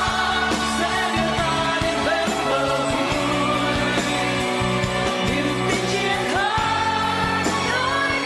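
A Vietnamese pop song: a singer's voice over a full band backing.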